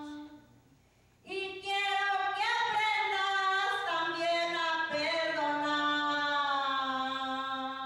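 A woman singing long drawn-out notes, her voice sliding between pitches. It breaks off for about a second near the start, then carries on and slowly fades near the end.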